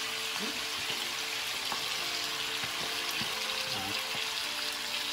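Fresh spinach frying in hot bacon grease: a steady, spattering sizzle, which the cook puts down to the water in the spinach.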